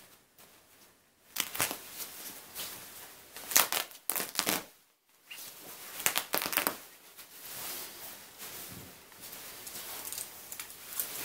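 Shiny quilted nylon jacket being pulled apart by hand: crinkling rustle of the slick fabric with three louder ripping bursts, then steadier rustling with small crackles as the torn shell and lining are worked.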